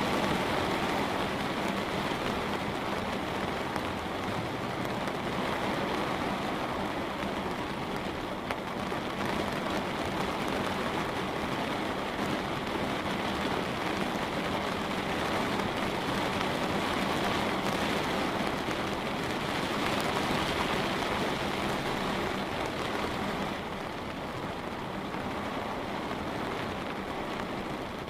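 Light rain falling steadily on a window as an even hiss of drops, easing slightly near the end.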